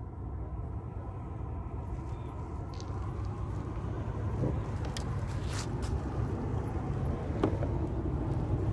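Steady low rumble of a vehicle engine, slowly growing louder, with a few sharp clicks about halfway through.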